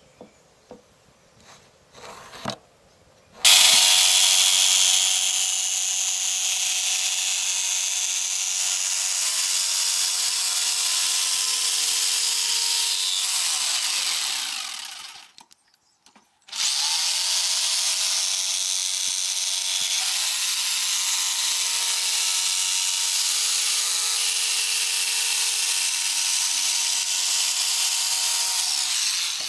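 Makita jigsaw cutting a wooden board: after a few light knocks, the saw starts and runs steadily for about ten seconds, winds down and stops, then starts again about a second later for another long cut that stops at the very end.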